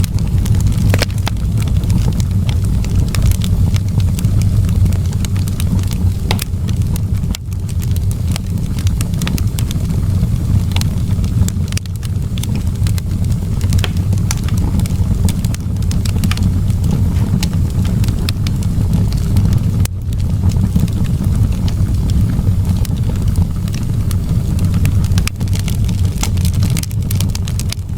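Fireplace wood fire crackling: irregular sharp pops and snaps over a steady low rumble.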